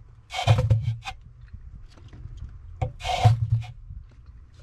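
Cucumbers being laid into a plastic pickling drum, scraping and rustling against the green tomatoes and carrots already in it. Two bursts, about two and a half seconds apart.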